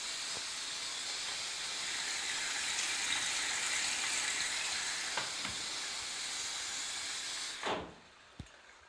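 Water hissing steadily into a Candy Activa Smart washing machine as it fills at the start of a wash program. The hiss stops near the end with a short knock.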